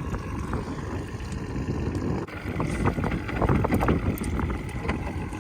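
Wind buffeting the microphone: an uneven low rumble, with a few light clicks and knocks around the middle.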